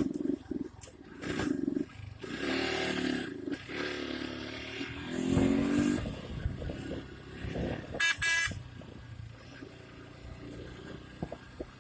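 Motor vehicle engine running and passing, with a short horn blast about eight seconds in.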